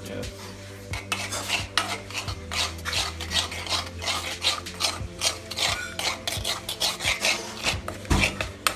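Steel spoon stirring and scraping a thick sauce around a non-stick kadai, in repeated scraping strokes a few each second.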